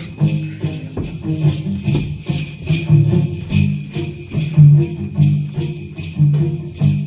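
Jingle bells shaking on a steady beat over a bouncy low bass melody: a Christmas-style backing track.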